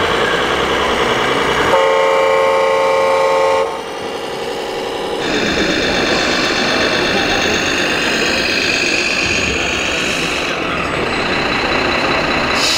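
Sound module of a radio-controlled model truck: one steady horn blast of about two seconds, starting about two seconds in, over simulated engine running and crowd chatter.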